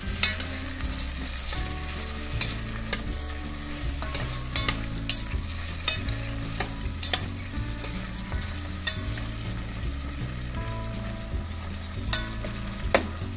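Chopped green capsicum and onions sizzling in oil in a steel pot, stirred with a steel spoon that clicks and scrapes against the pot at irregular moments.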